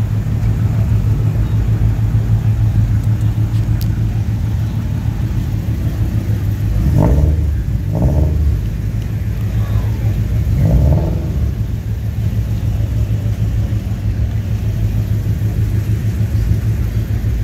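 Car engine running with a steady low rumble, swelling in three short revs partway through.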